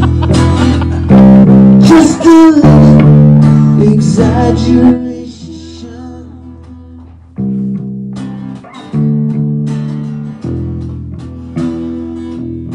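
Acoustic guitars strumming chords with no vocal line. The strumming is loud for about five seconds, drops to a softer stretch, and comes back strongly about seven and a half seconds in.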